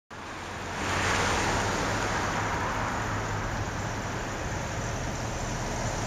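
Pickup truck driving past on a paved road: tyre and engine noise, loudest about a second in, then slowly fading.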